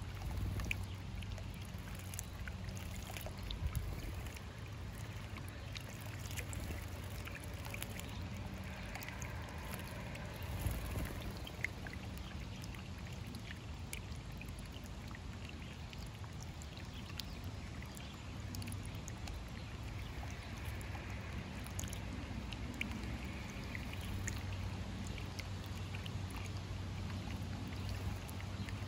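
Small birdbath fountain bubbling and trickling steadily over stones, with a low hum underneath. Short splashes and ticks come from house sparrows bathing, one flapping in the water near the end.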